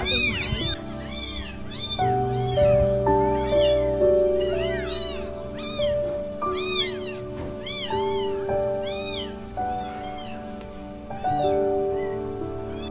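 Several very young kittens meowing over and over, their high, arching calls overlapping one another; the meowing stops about ten seconds in. Soft background music with long held notes plays underneath.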